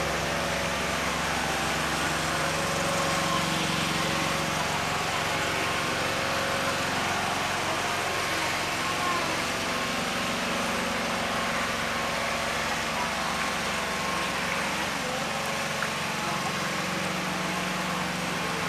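A small engine running steadily at an even pitch, over a steady hiss.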